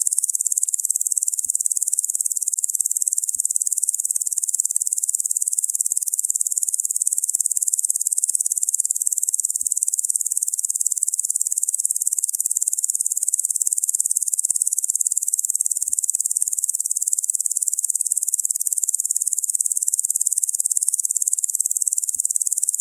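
Locusts buzzing: a dense, steady, high-pitched insect drone that runs without a break.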